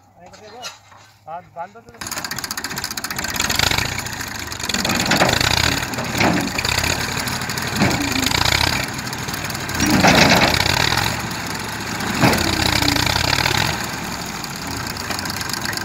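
Tractor diesel engine sets in loudly about two seconds in and runs hard, revving up and easing off again and again as it strains to pull a stuck, heavily loaded trolley free with its rear wheel sunk in the soil.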